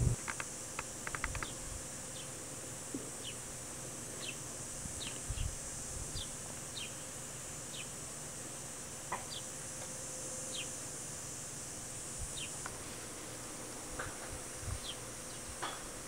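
Steady high-pitched insect drone in summer woodland, with scattered short, falling chirps and a few faint clicks in the first second and a half.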